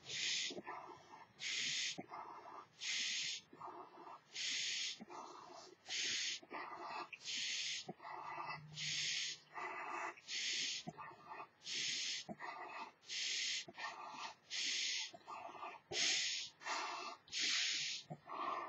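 A person blowing up a large latex duck-figure balloon by mouth, breath after breath. A hissing breath alternates with a lower, muffled puff, repeating steadily about once every second and a half.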